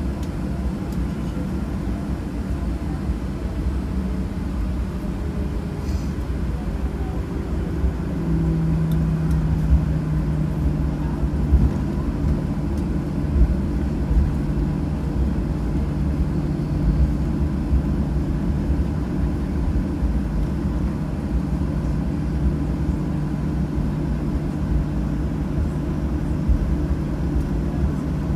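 Cabin noise of a Boeing 737-900 taxiing after landing: a steady low rumble from its CFM56 engines at idle. A steady hum comes in about eight seconds in, and the level rises slightly.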